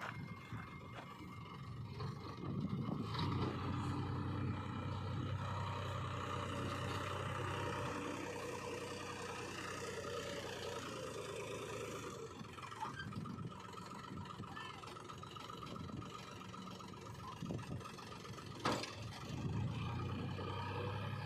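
A JCB 3DX backhoe loader's diesel engine revving up under load as it works, with a higher whine over the engine note. The whine eases off about halfway through, and the engine picks up again near the end. A single sharp knock sounds near the end.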